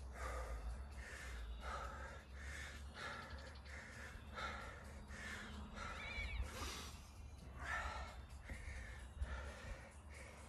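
A man breathing hard and fast in a steady rhythm, about three breaths every two seconds, winded from a sustained bodyweight circuit of pull-ups, burpees and full-range squats.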